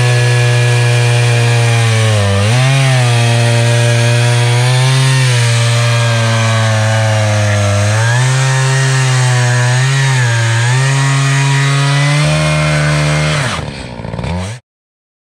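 Echo CS-590 Timber Wolf two-stroke chainsaw, with a ripping chain on a Granberg chainsaw mill, running at high revs while ripping a cedar log lengthwise into boards. Its pitch sags briefly a few times under load. Near the end the revs fall away and the sound cuts off suddenly.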